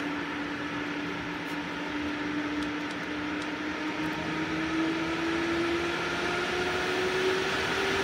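8-inch AC Infinity Cloudline S8 inline duct fan running and being ramped up toward full speed: a rush of moving air with a motor hum that slowly rises in pitch and grows a little louder.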